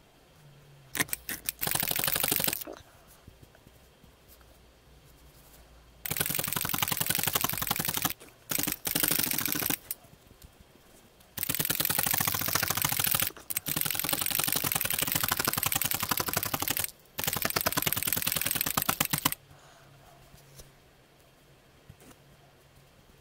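A felting needle stabbing rapidly into black wool on a burlap-covered felting pad, each stroke a crisp tick, as the loose wool is felted into a thin flat square. A short run comes about a second in, then a long run of stabbing with brief pauses, before it stops near the end.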